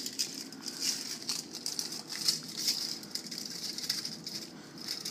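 Thin electrode foil from a dismantled iPad 3 lithium-ion battery cell crinkling and rustling as it is unrolled and shaken, with many small irregular crackles.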